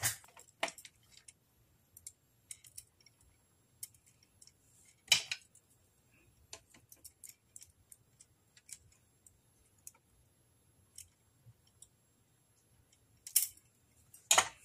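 Small metal clicks and taps from jewellery pliers handling little metal rings while a dangle is attached. They come sparsely, with a louder clink about five seconds in and a few more near the end.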